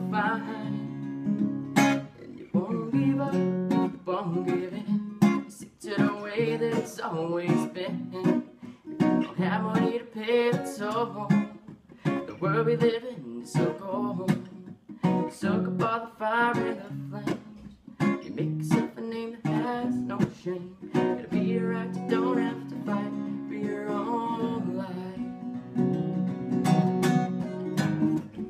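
Acoustic guitar music, strummed and picked throughout.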